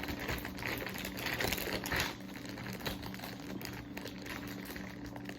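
Crinkling and rustling of packaging as small scent testers are handled and sorted, in irregular bursts.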